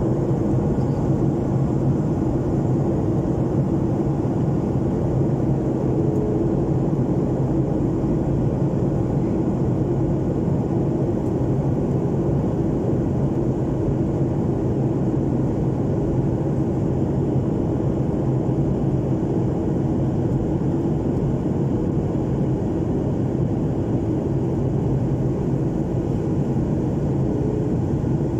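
Steady roar inside an airliner cabin: jet engine and airflow noise, low and even, with a faint steady hum.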